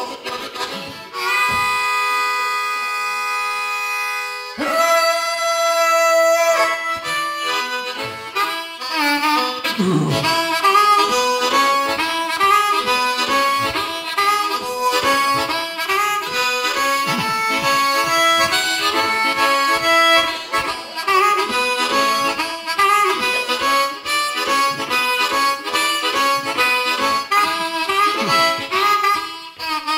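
Solo harmonica played with the hands cupped around it against the microphone, imitating a train: a long held chord, then a shorter held note, then from about nine seconds a fast, even chugging of repeated chords.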